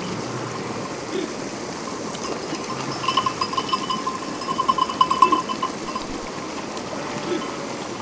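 Steady rush of running water, like a stream or trickle. From about three to six seconds in, a rapid high pulsing sound rises above it.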